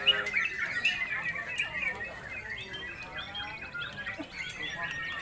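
Several yellow-vented bulbuls (trucukan) singing at once: a dense, overlapping chatter of short whistled phrases.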